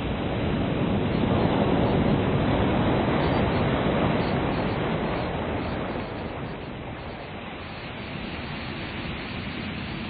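Ocean surf: a wave swells and washes in, loudest about two to four seconds in, then fades to a softer wash.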